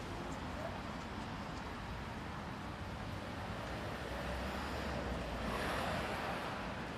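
Outdoor market street ambience with a motor vehicle passing close by: a low rumble builds about four seconds in and swells to its loudest near six seconds, then eases off.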